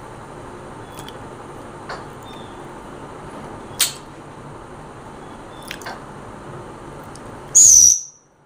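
An African grey parrot gives one short, loud, high-pitched squawk with a slightly falling tone near the end, over a steady background hiss. Several sharp clicks come before it.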